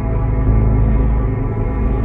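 Dark, industrial-style ambient horror music: a steady, heavy low drone with sustained tones layered above it.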